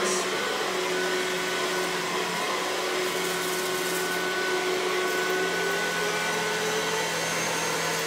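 Comfyer 2-in-1 cordless stick vacuum running on its lower suction setting as it is pushed over a rug: a steady motor hum whose pitch rises slightly near the end.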